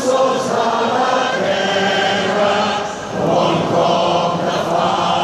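A large crowd singing together, many voices holding long notes in unison, with a short break about three seconds in.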